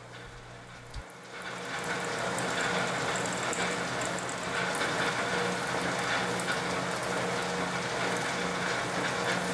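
Metal lathe running while a twist drill in the tailstock chuck cuts into a spinning aluminium workpiece. The drilling noise starts about a second in and stays steady over a low hum.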